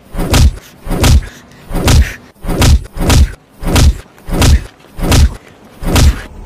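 Dubbed-in fight punch sound effects: a series of about nine heavy thuds, roughly one every two-thirds of a second, each with a deep low boom.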